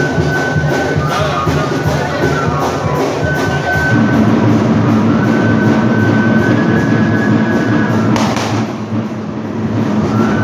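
Traditional dance music with a steady drum beat, about two to three beats a second, under a thin, high melody. The beat drops out briefly about eight seconds in.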